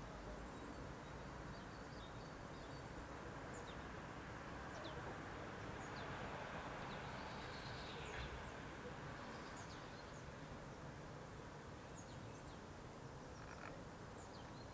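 Birds chirping, many short high chirps scattered throughout, over a faint steady outdoor background hiss.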